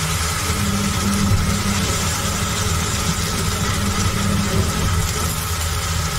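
Steady low mechanical hum with an even hiss over it, unchanging throughout: the constant background running of the kitchen while squid and onions fry in a steel pan on the gas stove.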